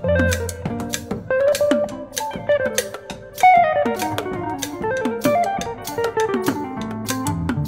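Jazz guitar playing a flowing line of quick notes over a drum kit, with cymbals struck steadily throughout.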